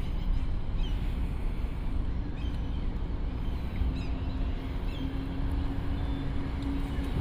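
Urban street ambience: a steady low traffic rumble with short bird chirps about once a second. From about four seconds in, a steady engine hum comes in from an approaching vehicle.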